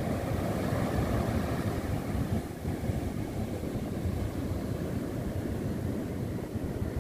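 Surf breaking and washing up a sandy beach, largely masked by wind buffeting the microphone as a steady, rumbling noise.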